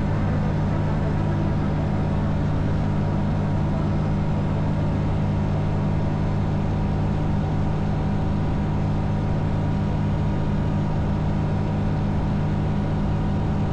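Single-engine light aircraft's piston engine and propeller droning steadily in cruise, heard from inside the cockpit with the rush of air around the canopy.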